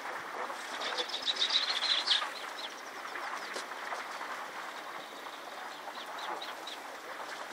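A bird calling: a quick run of short, high chirps starting about half a second in and lasting over a second, then scattered single calls, over the steady rush of a flowing river.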